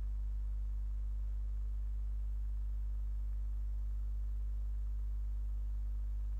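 Steady low electrical hum with a few faint higher overtones, unchanging throughout: mains hum picked up in the audio line.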